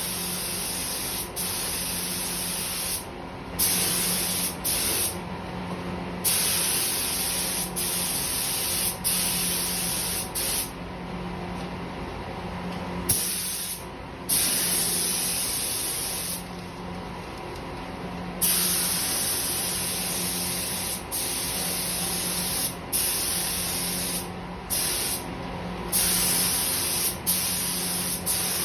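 Compressed-air spray gun hissing in repeated bursts as the trigger is pulled and released, with short breaks between passes, over a faint low hum.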